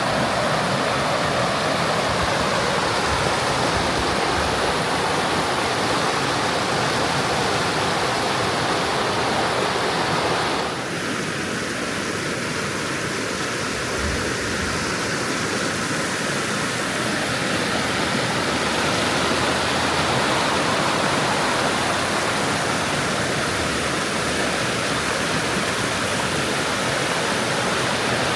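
Waterfall: a steady, dense rush of falling water. About eleven seconds in its tone shifts abruptly and it drops slightly in level.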